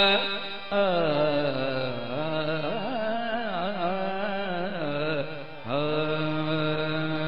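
A male kirtan singer's voice singing a wordless melodic opening to a shabad. He holds notes, slides down about a second in, weaves quick ornamented turns in the middle, and settles on a long held note near the end, with two short breaks for breath.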